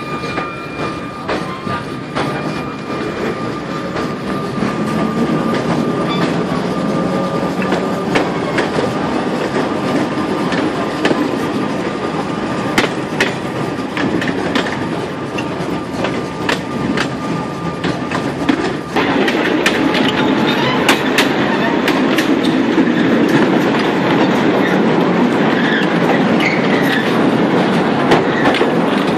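Vintage electric tram running on its rails, heard from on board: a steady rolling rumble with sharp clacks as the wheels cross the rail joints. A thin, steady high whine runs through the first two-thirds, then stops as the rumble suddenly gets louder.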